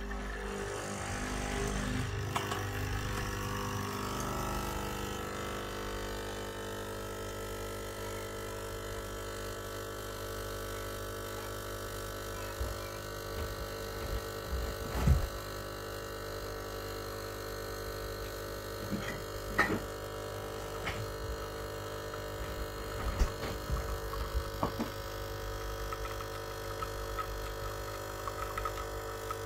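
Capsule coffee machine's pump buzzing steadily as it brews coffee into a mug, a little louder over the first few seconds, with a few faint clicks and knocks partway through.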